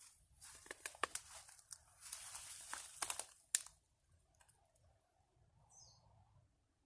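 Wood fire crackling and rustling for a few seconds, with sharp pops, the loudest about three and a half seconds in; a faint short falling chirp near the end.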